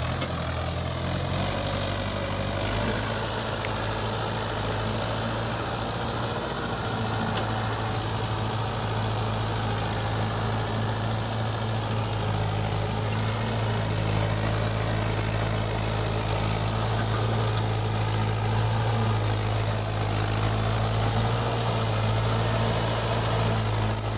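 Mahindra 575 DI XP Plus tractor's four-cylinder diesel engine running steadily under load as it pulls a trolley heaped with soil. It grows slightly louder from about halfway through.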